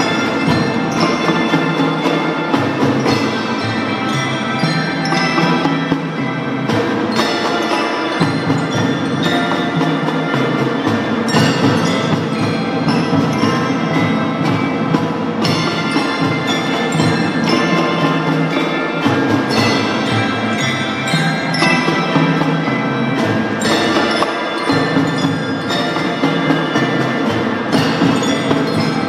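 Drum band playing a piece. Mallet percussion (marimbas, xylophones and glockenspiels) carries the melody over steady drum hits.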